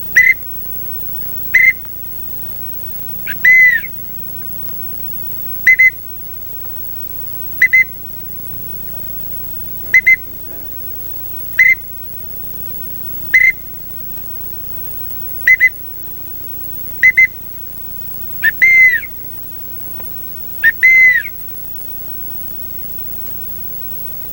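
Duck-calling whistles: short, high, loud whistles repeated every second or two, with a few longer ones that rise and fall in pitch, blown to bring ducks in to the decoys.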